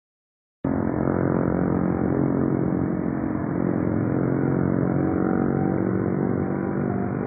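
A motor running steadily at an even pitch, coming in after a brief dropout at the start.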